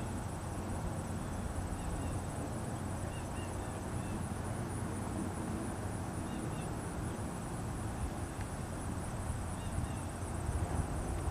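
Steady outdoor background sound: a low rumble with a thin, steady high buzz over it and a few faint short chirps.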